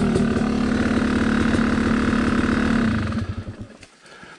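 Yamaha dirt bike engine idling steadily, then shut off about three seconds in, chugging briefly as it winds down to a stop.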